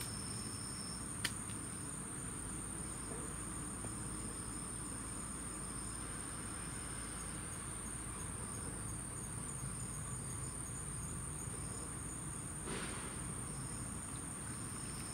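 A chorus of insects keeps up one steady, high-pitched tone throughout. A single sharp click sounds about a second in, and a short rush of noise comes near the end.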